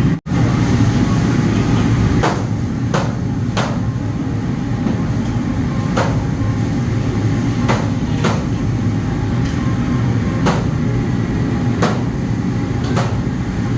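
A steady low rumble with short, sharp knocks at irregular intervals, about eight in all.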